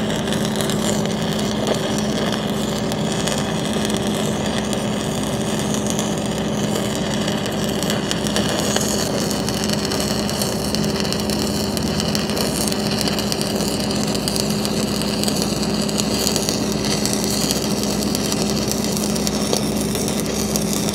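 Stick-welding arc of a cellulose pipe rod burning steadily as a hot pass is run over a thinly ground root bead on steel pipe: an even crackle and hiss, over a steady low hum.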